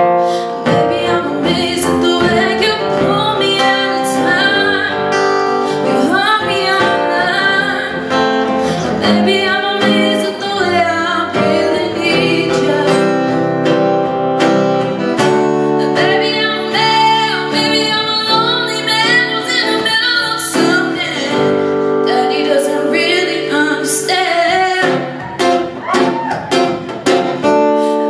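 A woman singing a song with acoustic guitar accompaniment.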